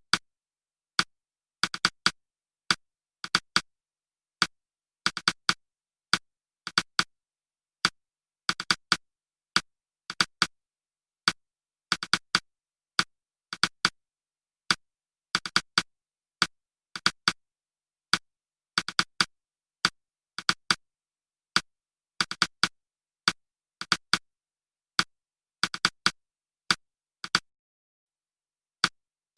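A series of short, sharp, identical clicks at uneven intervals, about one to three a second and sometimes in quick pairs, with dead silence between them.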